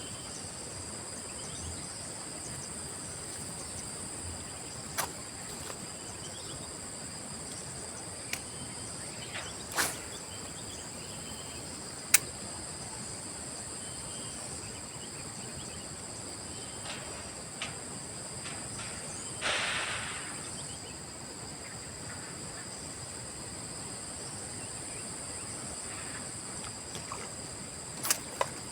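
Steady high-pitched insect chorus droning on two pitches, with a few sharp clicks scattered through it and a short rushing noise about two-thirds of the way in.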